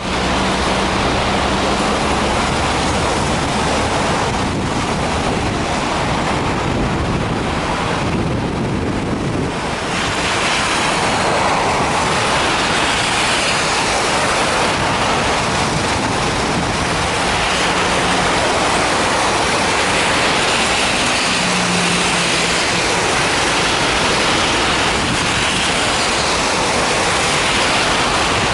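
Strong wind blowing hard, a loud steady rush with wind buffeting the microphone.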